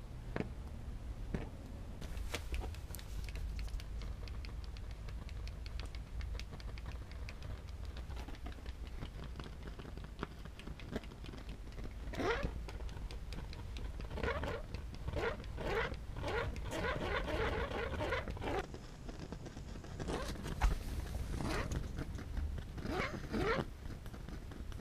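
Burning, melting polyurethane sputtering with short, buzzing, fart-like noises. There are scattered crackles at first, then the buzzes come thick and fast from about halfway through, with a low rumble underneath.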